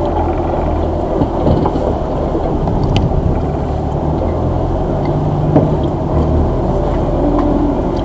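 Engine of an off-road 4x4 running steadily in a low, even hum as it crawls along a rough forest track, with a few short knocks and rattles from the vehicle.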